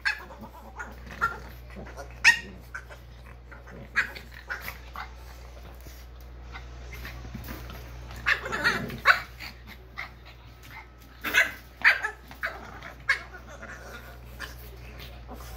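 French bulldogs playing nose to nose through a wire pen: short yips and barks every second or two with growling between, busiest about eight to nine seconds in and again around eleven to twelve seconds.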